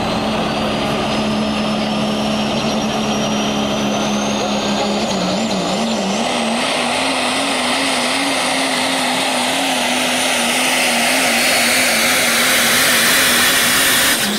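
Super stock diesel pulling truck's engine running hard under full load, with a thin whine that climbs steadily in pitch. The engine note starts to waver about five seconds in and grows louder near the end.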